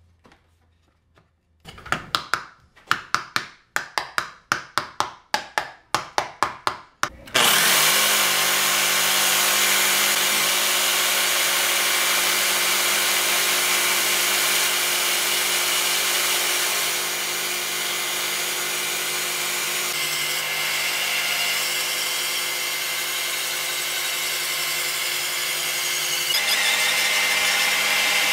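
A quick run of about a dozen sharp knocks, then a jigsaw and a cordless drill running together steadily as a wooden blank is spun through a jig plate and shaved round into a dowel by the jigsaw blade. The pitch shifts near the end.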